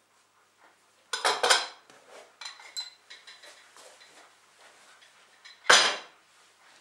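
Cutlery and crockery being handled: a clatter about a second in, a few light clinks, then one loud sharp clack near the end.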